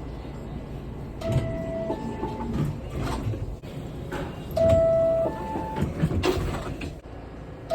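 R62A subway car door chime sounding twice, each time a lower note stepping up to a higher one, the odd 'weird' version of the chime, with a third just starting at the end. Clicks and rattles from the train sound underneath.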